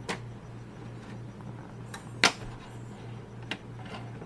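A PS3's hard drive in its metal caddy being pulled out of the console's drive bay: one sharp click about two seconds in, with fainter clicks near the start and near the end, over a steady low hum.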